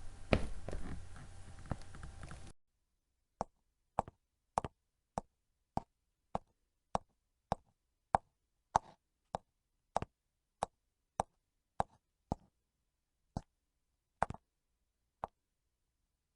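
Footsteps: a few steps over a background hiss, then, after a sudden cut, a steady walk of about nineteen evenly paced steps, just under two a second, on a silent background.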